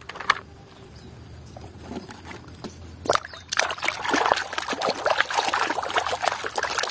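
A plastic toy truck clatters briefly as it is set down on other toys. About three seconds in, muddy water starts sloshing and splashing in a plastic basin as it is churned.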